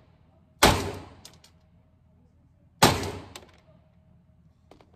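Two gunshots at a shooting range, about two seconds apart, each with a decaying ring and a few faint small clicks after it.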